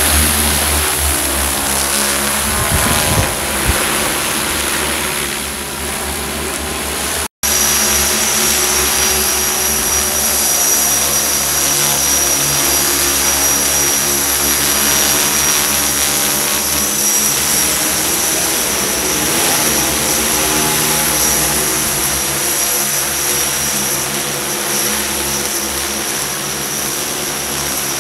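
Large multirotor agricultural spraying drone's propellers humming steadily, the pitch drifting slightly as it flies and sprays. A brief break in the sound about seven seconds in.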